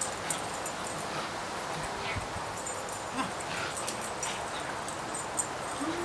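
Pug puppy whimpering in short, separate high cries while being handled toward a wire crate it has not been trained to, with a few sharp clicks.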